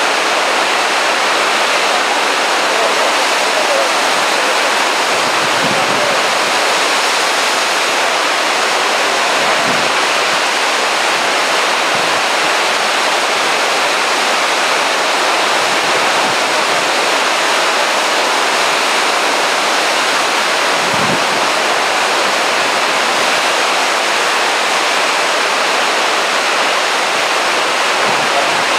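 Rough sea surf breaking over a rocky shore below a cliff: a steady rush of churning white water, with a few deeper surges as waves hit the rocks.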